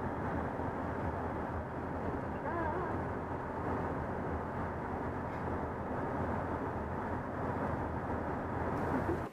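Steady road and engine noise inside a moving car's cabin while driving.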